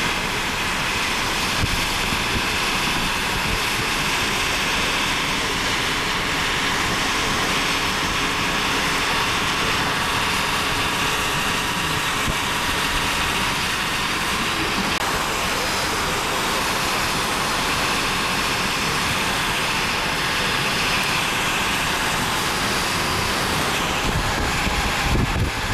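Steady rushing noise of wind and a vehicle heard from inside a car, with heavier low buffeting of wind on the microphone near the end.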